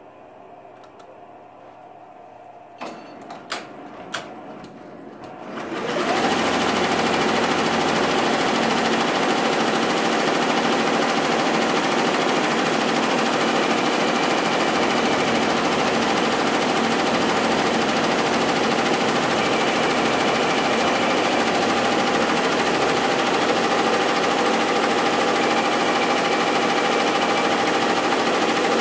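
Tajima multi-head embroidery machine starting up and stitching the tack-down line of an applique. A few sharp clicks come first, then about five to six seconds in the machine winds up to speed and runs in a loud, steady whir with a steady tone.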